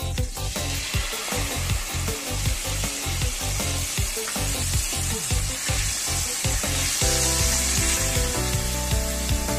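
Soy sauce sizzling hard in a hot stainless steel skillet with chopped garlic, starting about half a second in as it is poured, then stirred with a metal spoon. Background music with a steady beat plays underneath.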